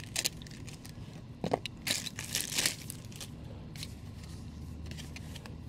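Plastic wrapping crinkling and crackling as a sealed small product box is torn open by hand, in short bursts during the first half, then faint handling.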